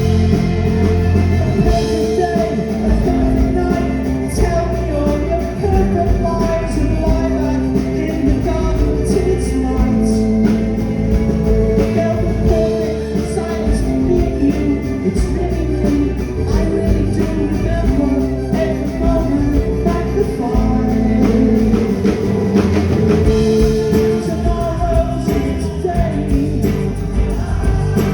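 Live pop-rock band playing loudly: drum kit, guitars and bass, with singing.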